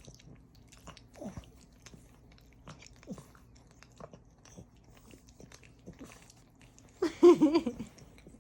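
French bulldog puppy mouthing and chewing with small wet smacking clicks and short squeaky sounds, then a louder pitched vocal sound about seven seconds in.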